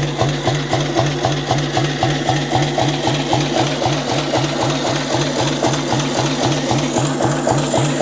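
Ruggerini 550 cc engine, set up to run on petrol with a carburettor and CDI ignition, idling on a custom motorcycle with an even thump about five times a second.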